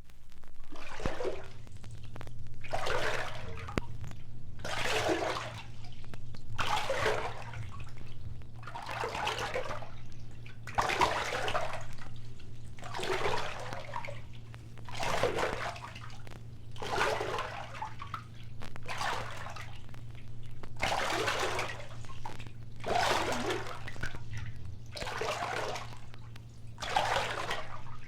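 Rhythmic rushing water, one surge about every two seconds, over a low steady hum.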